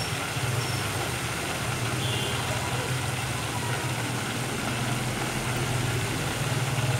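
Chicken thighs deep-frying in a pot of hot oil, a steady bubbling sizzle, over a steady low hum.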